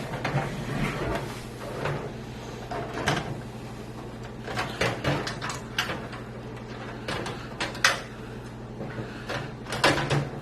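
Irregular clicks, taps and scrapes of a motherboard being handled and fitted into a PC case, over a steady low hum.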